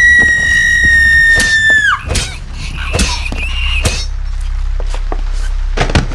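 A long, piercing scream that slides down and breaks off about two seconds in, followed by a shorter cry and scattered knocks and thuds.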